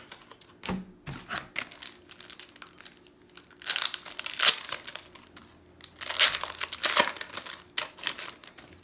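Foil trading-card pack wrapper crinkling and tearing as a pack is opened by hand, with two longer rustles about four and six seconds in and light clicks of cards being handled between them.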